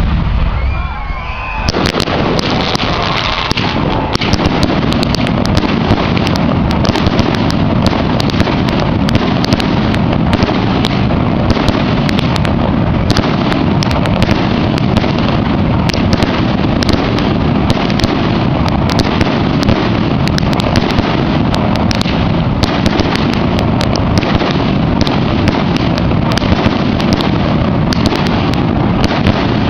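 Aerial fireworks display: a dense, continuous barrage of shell bursts and crackling reports, many per second, that builds up about two seconds in and carries on without a break.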